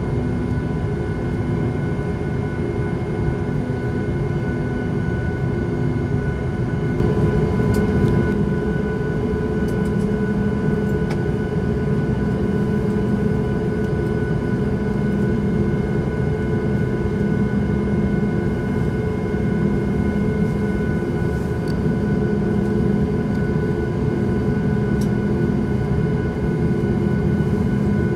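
Cabin noise of a Boeing 737 MAX 8 airliner heard from a window seat: a steady drone of its CFM LEAP-1B engines and rushing air, with several steady whining tones above it. The sound swells slightly about a quarter of the way in.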